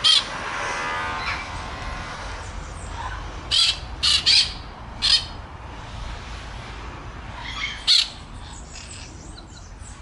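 Peach-fronted parakeets giving short, shrill squawking calls, about six of them in irregular bursts, a cluster of three or four in the middle of the stretch and a last one near the end.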